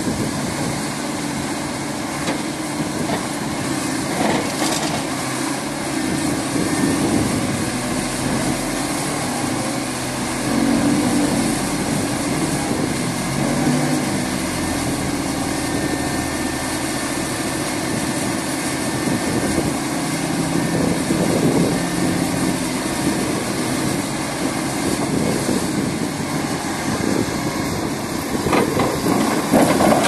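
Vibratory pile hammer driving sheet piles: steady machinery noise with engine sound beneath, holding about level throughout.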